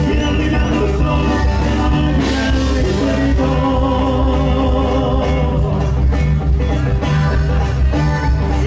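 Live band music: a huapango from a medley, played loud with a heavy, steady bass line.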